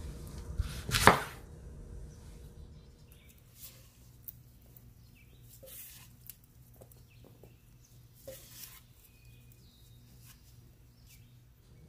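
A single knife chop on a wooden cutting board about a second in, then a few soft scattered taps as diced tomato pieces are dropped onto the chicken and pepper filling.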